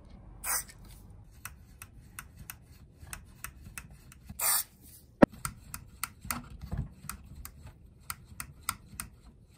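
Contact cleaner sprayed into the volume and tone potentiometers of a tube amp in two short hisses, followed by a run of light clicks and ticks as the knobs are turned back and forth to work the cleaner in, with one sharp knock about five seconds in that is the loudest sound.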